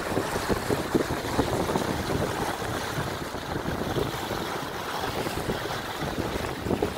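Water rushing along the hull and churning in the wake of an Ikone 7.50 sailboat under sail close-hauled, with gusty wind buffeting the microphone, the buffeting stronger in the first couple of seconds.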